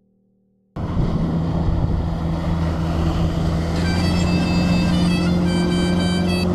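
Near silence, then about three-quarters of a second in a motorboat engine starts abruptly, loud and steady, running at speed with wind and water rushing past the hull. From about halfway, high thin tones that change pitch in steps sound over the engine.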